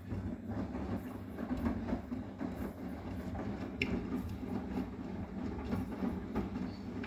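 Arçelik 9120M front-loading washing machine running its wash cycle, the drum turning with a steady, low rumble, and one brief click just under four seconds in.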